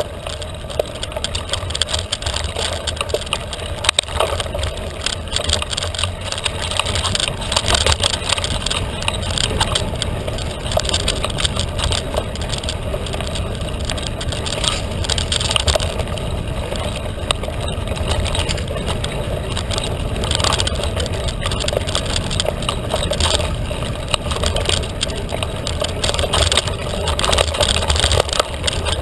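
Felt carbon 29er mountain bike ridden fast on an off-road trail. A steady wind rumble runs on the microphone, mixed with tyre noise and frequent small clicks and rattles from the bike.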